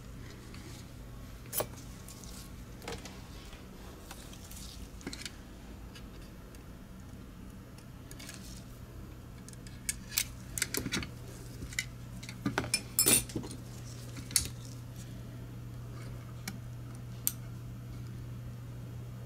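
A small hand tool clicking and clinking against the plastic shell and internals of a Logitech G Pro X Superlight mouse as it is taken apart. Scattered sharp clicks, with a busy run of them about ten to fourteen seconds in, over a steady low hum.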